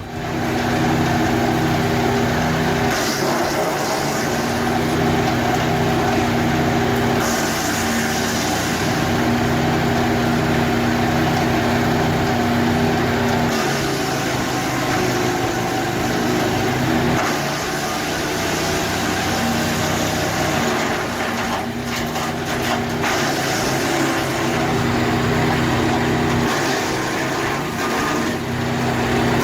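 Small engine-driven wood chipper running steadily at a constant pitch while it shreds wood. The tone shifts several times, as the load changes or at edits.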